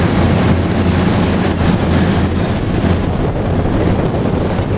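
Boat engine running with a steady low hum, under wind buffeting the microphone and water rushing past.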